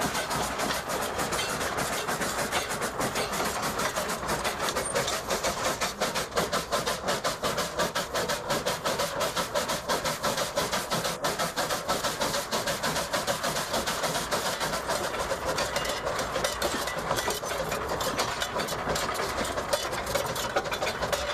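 1899 Porter 0-4-0 steam locomotive running, heard from its cab: a steady rattling clatter of the running gear and wheels on the rails, with a hiss of steam.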